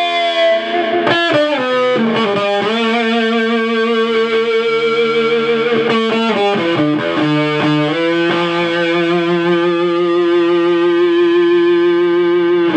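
Electric guitar played through a 1960s Univox Uni-Fuzz (Shin-Ei Super-Fuzz circuit) into a small 2-watt valve-less hand-built amp: a dark, thick fuzz with an octave coming through underneath it. Sustained, slightly wavering notes change pitch several times, then one long note is held near the end, with no mains buzz behind it.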